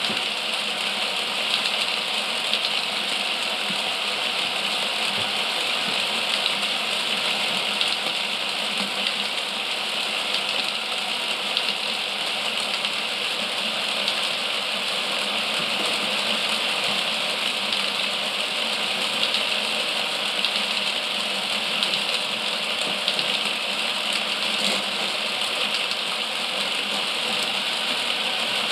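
Mould King 11012 motorised toy roller coaster running, its electric motor drive making a steady, even mechanical whir.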